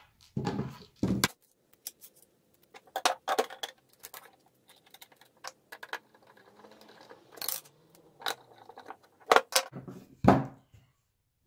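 Small metal screws and washers clicking and the plastic parts of a MicroJig GRR-RIPPER push block knocking on a workbench as a side leg is fitted and screwed on with a hand screwdriver: a string of scattered light clicks and knocks.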